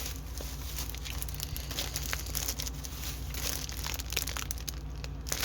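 Plastic packaging crinkling and rustling as it is handled, in irregular crackles, over a low steady hum.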